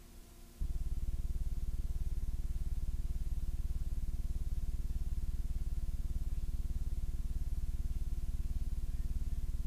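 Steady low electrical hum, a mains buzz in the videotape playback, that switches on suddenly about half a second in and then holds level.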